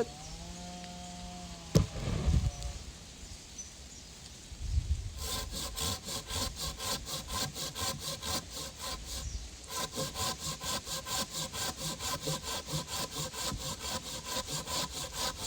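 Silky Sugoi pruning handsaw cutting through a thick log. After a thump about two seconds in, fast, even sawing strokes start about five seconds in and break off briefly near the middle.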